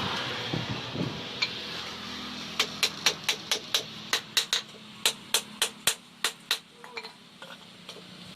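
Hand hammer striking a steel knife blade on an anvil in quick, light blows, about three a second, each with a short metallic ring. A hiss fades away over the first two seconds before the blows begin.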